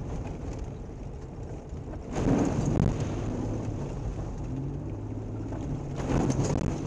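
Mitsubishi Pajero driving through puddles on a gravel track, heard from inside the cabin: a loud rush of muddy water splashing over the body and windscreen about two seconds in, and a second splash near the end, over the steady rumble of engine and tyres.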